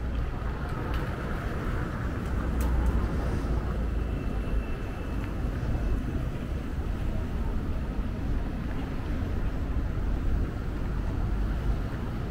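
Outdoor city street ambience: a steady low rumble of traffic with a few faint clicks.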